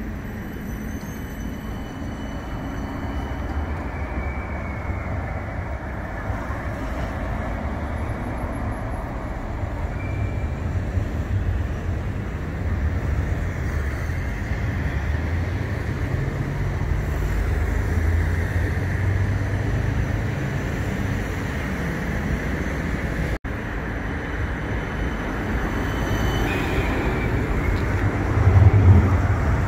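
CAF Urbos 100 tram running on its rails: a steady rolling rumble with faint high whines. It cuts out for an instant about three-quarters of the way through, and it grows louder near the end.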